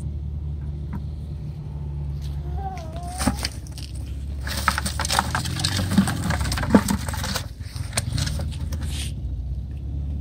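Cloth towel rustling and a gloved hand rummaging inside a plastic five-gallon bucket, with a couple of sharp knocks against the bucket about two-thirds of the way through. A steady low hum runs underneath.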